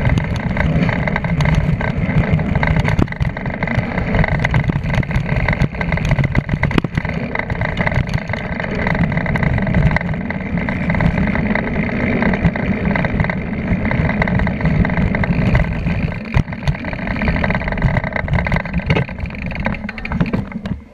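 Fast mountain-bike descent on a dirt trail: wind rushing over the bike-mounted camera's microphone, with the knobby tyre rolling over the dirt and the bike rattling and knocking over bumps. It quietens near the end as the bike slows.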